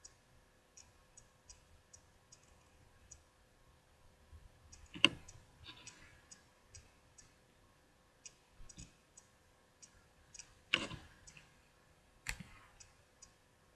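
Light, irregular clicking with three louder knocks, about five seconds in and twice near the end, from baseball cards being handled close to a computer's microphone.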